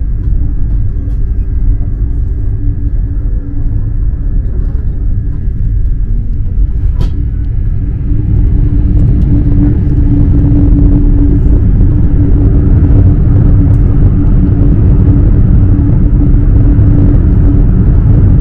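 Train running: a loud, steady low rumble with a constant hum, growing louder about eight seconds in.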